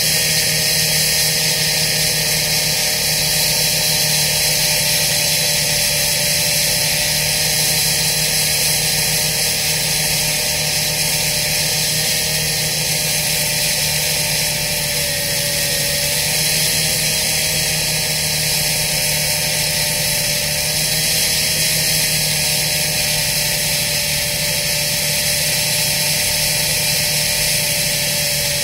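Steady diesel engine drone from an excavator-based piling rig running, with a held whine that wavers slightly in pitch.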